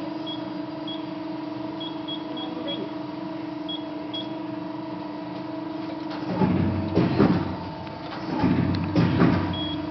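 Control-panel keypad beeps, several short high beeps, over the steady hum of an Amada Promecam GH 2100 CNC guillotine shear that is running. About six seconds in, the machine moves twice with louder mechanical rumbling, each move lasting about a second and a half.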